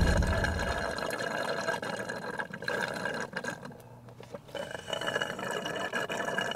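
Drink being sipped through a paper straw, a liquid sucking sound with small clicks.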